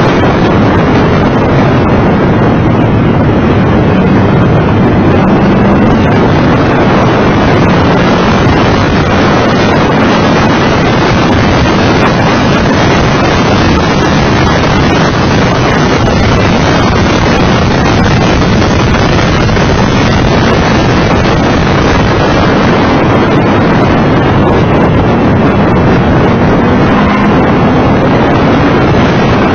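Mitsubishi FTO GPX's V6 engine running hard at track speed, its note rising and falling a little, largely buried under heavy wind rush on the bonnet-mounted microphone.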